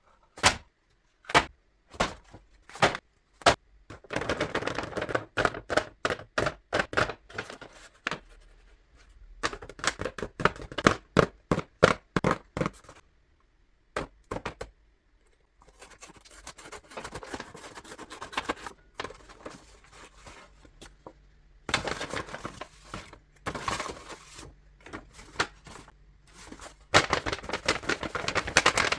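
Close-up paper handling: a run of sharp taps and clicks, then stretches of paper rustling and crinkling, with more clicks in between.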